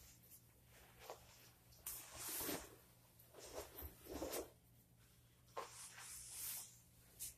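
Rustling of a jacket being taken off: several soft swishes of fabric, with a sharp click about two seconds in and another near the end.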